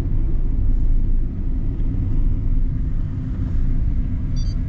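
Car cabin noise while driving: a steady low rumble of engine and tyres. Near the end comes a brief high electronic beep.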